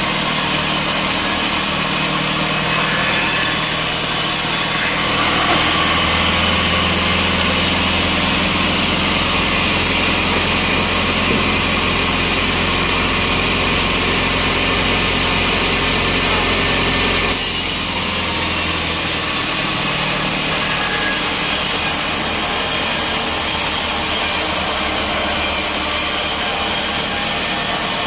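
Sawmill running, its engine-driven saw cutting through a log from about five seconds in to about seventeen seconds, then running on without a cut.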